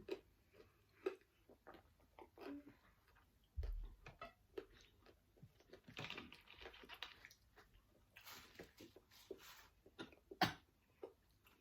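Someone eating crunchy fried fast food close to the microphone: quiet chewing and crunching with scattered clicks and mouth smacks, and a sharper click about ten seconds in.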